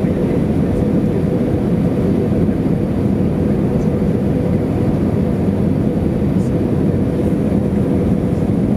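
Airbus A320 cabin noise on approach: the steady drone of the underwing jet engine and airflow rumble, heard from a window seat over the wing, with a steady low hum running through it.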